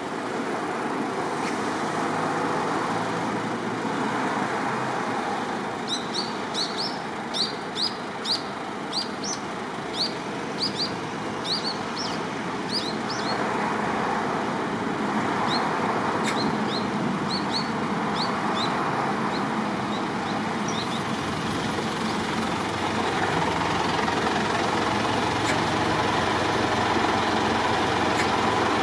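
Steady road and engine noise of a car driving. A quick run of short, high chirps comes about six seconds in and lasts about seven seconds, with fainter ones until about twenty seconds in.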